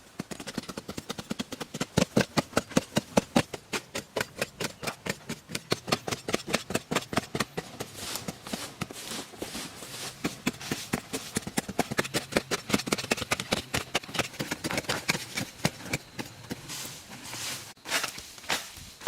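A rapid, steady series of sharp knocks or impacts, several a second.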